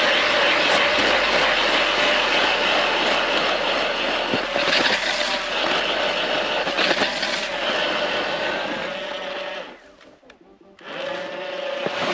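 Power ice auger boring a hole through lake ice, its motor running steadily with a constant whine under the cutting noise. About ten seconds in it stops for under a second, then starts again.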